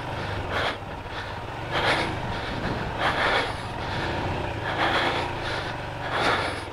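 Royal Enfield Himalayan's single-cylinder engine running at low speed, with a hissing rush of noise every second or so.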